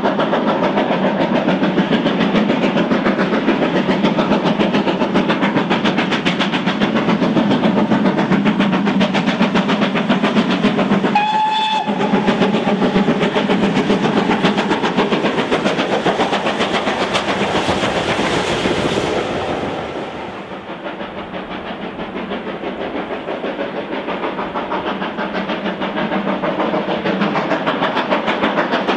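GWR Manor-class 4-6-0 steam locomotive 7822 Foxcote Manor working a short train, its exhaust beats coming in a fast, steady rhythm, with one short whistle blast a little before the middle. The exhaust falls a little quieter for a few seconds after the middle, then builds again.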